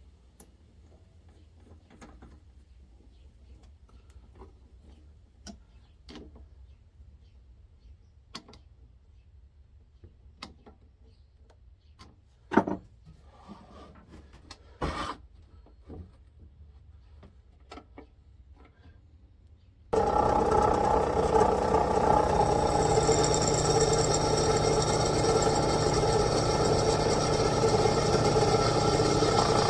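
Scattered clicks and knocks of tools and parts being handled, then about two-thirds of the way through an electric drill press is switched on and runs steadily and loudly, with a steady hum and, a few seconds later, a high whine added.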